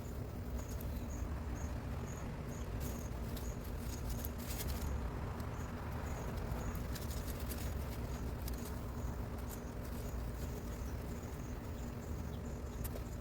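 Garden ambience in the evening: an insect chirping in short, evenly repeated high chirps, about two to three a second, over a steady low rumble, with scattered small clicks and rustles.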